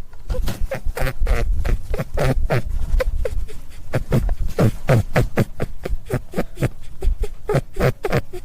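Rabbit giving a rapid series of short cries, several a second, each falling sharply in pitch. A steady low rumble runs underneath.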